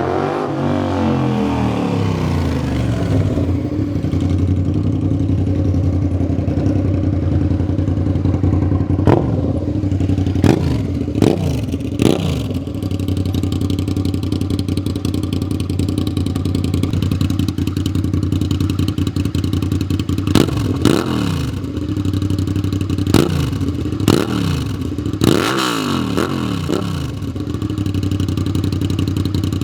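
Suzuki SV650S's 90-degree V-twin engine idling steadily, with quick throttle blips in two clusters, a few near the middle and several more in the last third, each revving up and falling back to idle.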